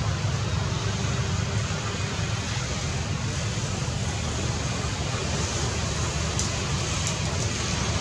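Steady outdoor background noise with a strong low rumble, and a few faint high ticks near the end.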